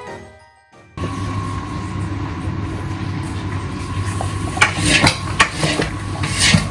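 Background music fades out in the first second. Then a long metal paddle stirs boiling halwa in a large steel cauldron: scrapes and sharp knocks of metal on the pot over a steady hum, the knocks starting about halfway through.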